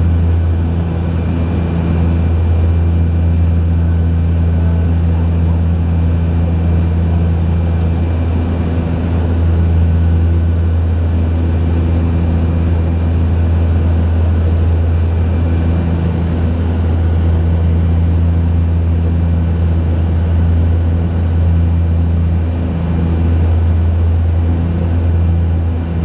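Cabin noise of a de Havilland Canada DHC-6 Twin Otter in flight: its two PT6A turboprop engines and propellers making a steady, loud drone. A deep hum dominates, with a higher tone above it that wavers in and out.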